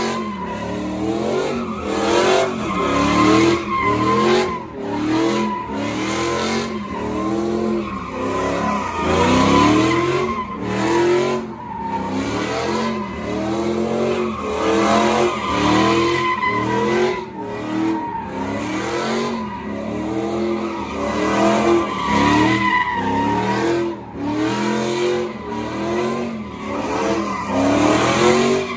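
Pickup truck doing donuts: its engine revs rise and fall over and over while the spinning rear tires hold a steady squeal on wet pavement.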